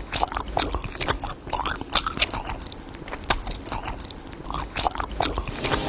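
Close-up mouth sounds of a man biting and chewing a chili-coated piece of food: irregular wet smacks and crunchy clicks, several a second.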